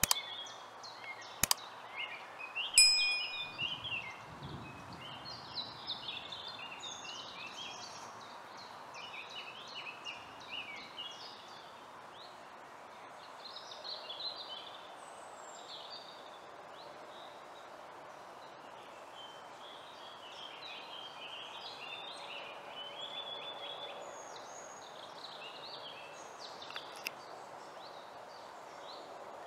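Woodland birdsong: many small birds chirping over a steady outdoor hiss. Near the start, two sharp mouse-click sounds and then a short bell ding, the loudest sound, from a subscribe-button animation.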